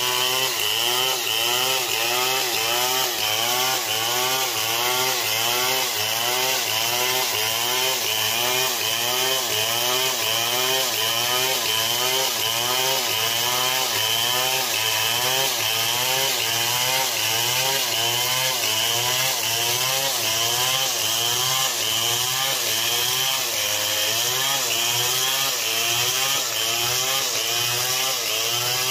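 Stihl 070 two-stroke chainsaw running under load as it cuts through a palm trunk. Its engine pitch rises and falls in an even rhythm, about one and a half times a second, over the hiss of the chain in the wood.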